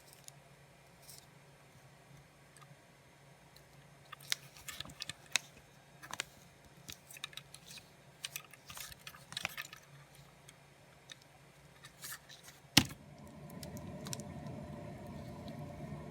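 Scattered light clicks and taps of small plastic and die-cast toy-car parts being handled while a model is taken apart. A single sharp click comes near the end, followed by a steady low hum.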